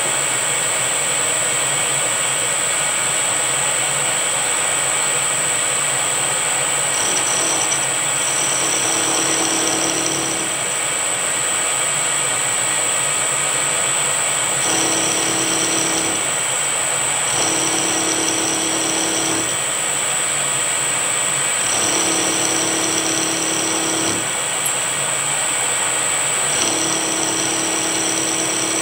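Milling machine spindle running with a steady high whine while an end mill cuts a cam lobe on a silver-steel camshaft. From about seven seconds in, a cutting tone comes and goes every few seconds as the cutter is fed into and out of the work.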